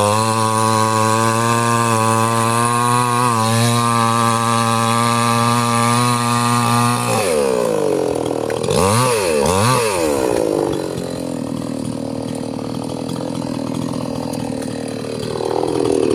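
Two-stroke chainsaw engine held at high revs for about seven seconds, then throttle released: it falls away, is blipped twice, settles to a lower idle, and revs up again near the end.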